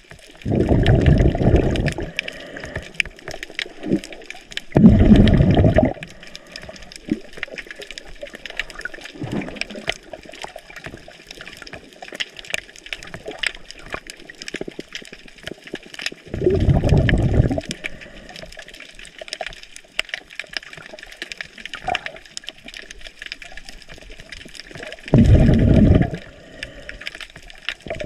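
Underwater sound picked up by a submerged camera: a steady fine crackle, broken by four loud, low watery rushes of about a second each, near the start, about five seconds in, around the middle and near the end.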